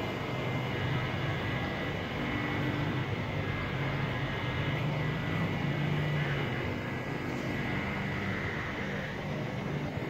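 A steady low mechanical drone like a distant engine, with a faint steady high tone above it.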